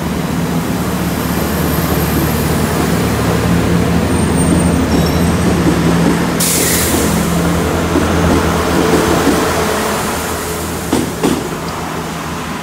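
A Great Western Railway passenger train pulling out of the station, its engines running steadily under power, growing louder and then fading as it draws away. A sudden hiss about six seconds in, and two sharp knocks near the end.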